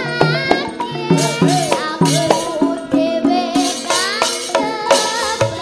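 A young sinden, a Javanese female gamelan singer, singing a gliding melody into a microphone over a Javanese gamelan, with regular drum strokes and ringing bronze metallophone notes.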